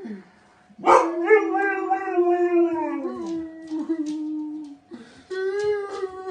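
A husky howling in long, wavering wails that start sharply about a second in and slide downward, breaking off briefly about five seconds in before starting again.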